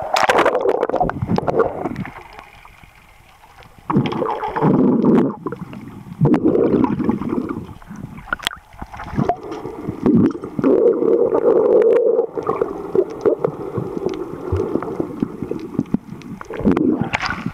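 Muffled water sloshing and bubbling as heard from underwater, in uneven surges with scattered sharp clicks; it is briefly quieter about two to four seconds in.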